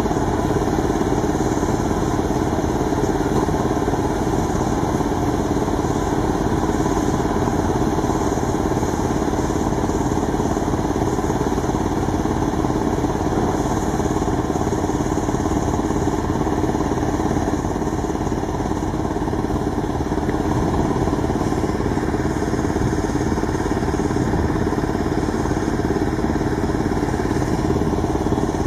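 An engine running steadily at a constant speed, its pitch and loudness unchanging.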